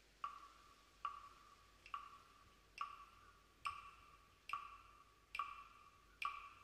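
Wooden clapsticks struck in a slow, steady beat: eight sharp clicks, a little more than one a second, each with a short ringing tone, as the opening of an Aboriginal-style music track.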